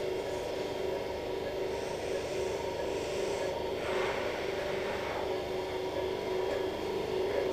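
Steady electric hum of operating-room equipment, with a short rasping, rubbing noise about four seconds in.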